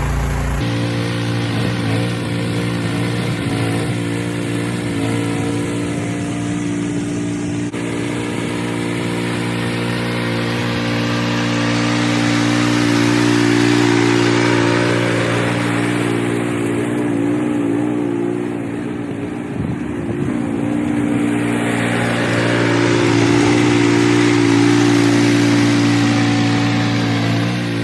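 Cub Cadet 3X 30" heavy-duty three-stage snowblower's engine running steadily, its level wavering slightly with a brief dip about twenty seconds in.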